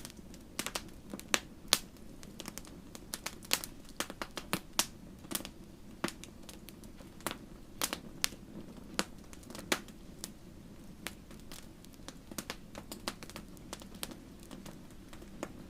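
Bonfire crackling: irregular sharp pops and snaps over a steady low rush of the flames.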